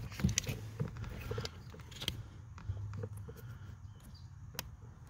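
Scattered light clicks and knocks of parts and tools being handled, over a low steady hum.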